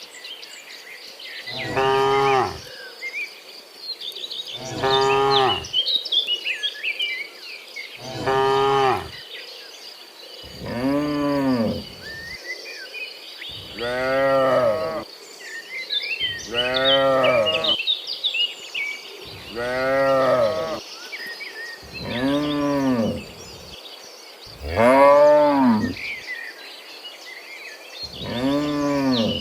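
Cattle mooing over and over, about every three seconds: about ten moos, each a second or so long, rising then falling in pitch. A steady high insect trill and scattered bird chirps run between the moos.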